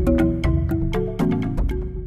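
Music with a quick run of crisp, sharply struck pitched notes, gradually getting quieter.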